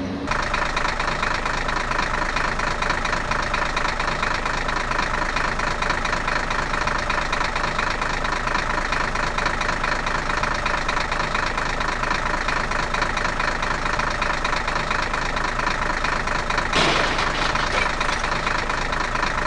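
Engine running steadily at idle, with a fast, even knocking texture and a brief louder burst near the end.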